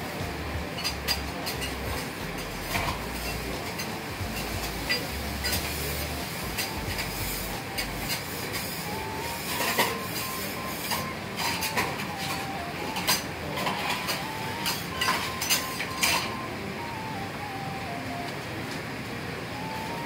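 Steady noise at a steel teppan griddle where okonomiyaki cabbage mounds are cooking, with sharp metal clinks and clatter of utensils, thickest in the second half. A faint tune of single notes comes in at about nine seconds.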